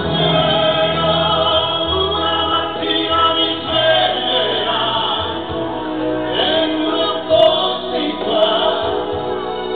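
A live song: a man and a woman singing a duet over a small band with accordion and keyboard.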